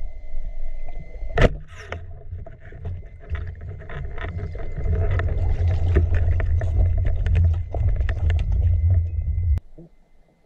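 Underwater sound through a camera's waterproof housing while freediving: a low rumbling wash of water moving past the camera, with scattered small clicks and taps. A single sharp knock comes about a second and a half in. Near the end the sound drops away abruptly.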